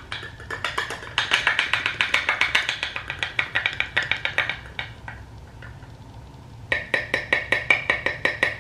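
Plastic loose-powder jar being shaken and handled: a fast run of small clicks and rattles, many a second. It pauses for about two seconds past the middle, then starts again.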